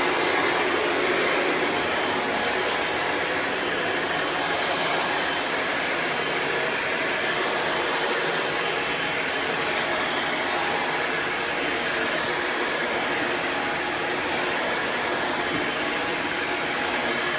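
Kirby Ultimate G Diamond Edition upright vacuum's 7.0 amp direct-air motor running steadily on high speed in tool mode, drawing air through the hose and floor tool. It is pretty noisy, because of how high the speed is.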